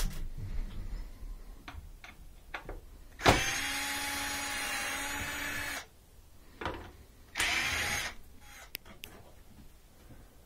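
Cordless drill/driver running a few seconds in with a steady whine for about two and a half seconds, then a second short run about a second and a half later, backing out the screws that hold the washer's front panel. Light clicks and knocks of handling come between.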